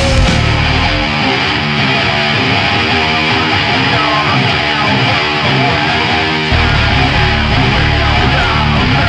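Live heavy metal band playing, distorted electric guitars to the fore. The deep low end drops out about a second in, leaving the guitars on their own, and comes back in full about six and a half seconds in.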